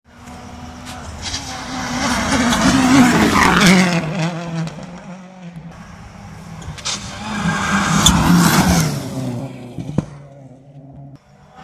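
Rally car engines at full throttle passing at speed on a tarmac stage, twice. Each pass swells to a loud peak and fades, the engine note rising and falling, with a few sharp cracks.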